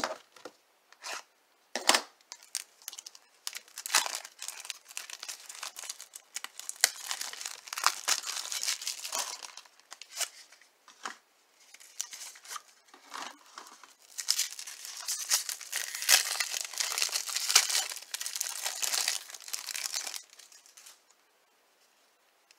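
Wrapper being torn and crinkled off a 1994 Flair baseball card pack, a small cardboard pack box. A few sharp snaps and taps come in the first two seconds, then two long stretches of crackly tearing and crinkling. It stops about 20 seconds in.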